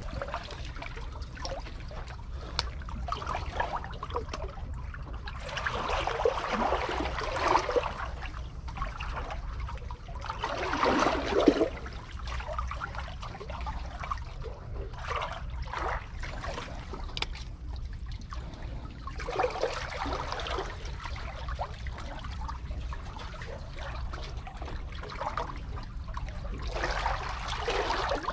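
Seawater surging in and draining out of the gaps between concrete tetrapod blocks, in irregular swells, the loudest about eleven seconds in, over a steady low rumble.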